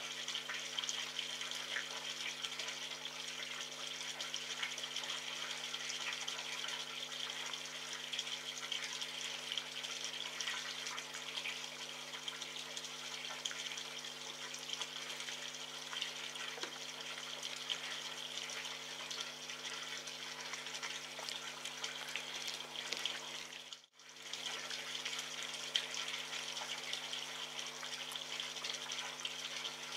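A steady hiss, like running water, over a low steady hum; both cut out for a moment about 24 seconds in.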